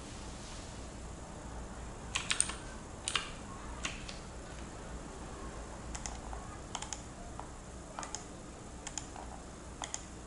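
Scattered sharp clicks, single and in small clusters, from a computer keyboard and mouse being used to step through the Windows setup menus, over a low steady hum.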